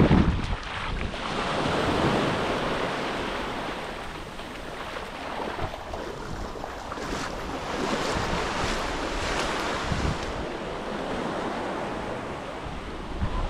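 Light surf washing onto a sandy beach, swelling and easing a couple of times, with wind buffeting the microphone.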